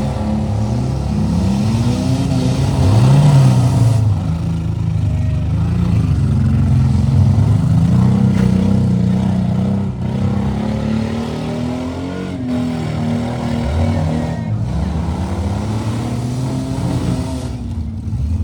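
Several demolition derby cars' engines revving up and falling back over and over, their pitches overlapping, with a few sharp knocks from the cars hitting each other.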